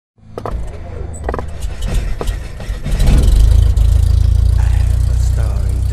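A deep, steady engine rumble that swells about three seconds in and holds, after several sharp clicks.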